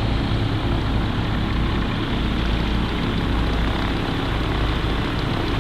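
An engine running steadily, with an even low drone and no change in speed.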